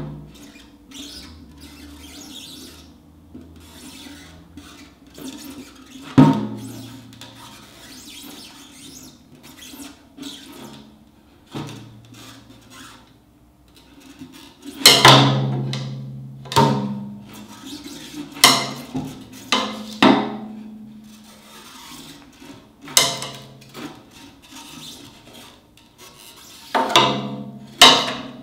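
Rack tom played with a drumstick to check its tuning: quiet tapping and scraping of the stick on the drumhead, broken by several louder hits that ring with a low drum tone, most of them in the second half.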